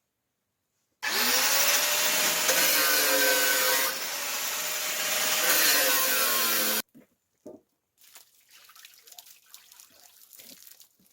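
Electric power tool motor running under load for about six seconds, rising in pitch as it spins up, then cut off abruptly; faint scraping follows.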